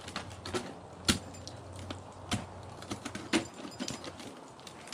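Ice tools and crampons striking the ice of a frozen waterfall during a climb: a string of sharp hits at uneven intervals, the loudest about a second in.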